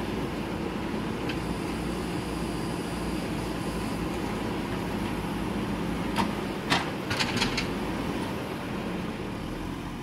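JCB 3DX backhoe loader's diesel engine running steadily as the backhoe arm works, with a quick run of sharp knocks about six to seven and a half seconds in as the bucket meets the ground.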